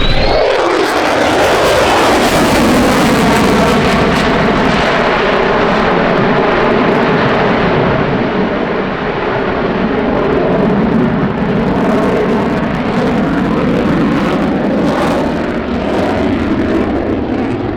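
Airplane passing close by: its engine note drops sharply in pitch over the first two seconds as it goes past, then it keeps running loud and steady as it moves away.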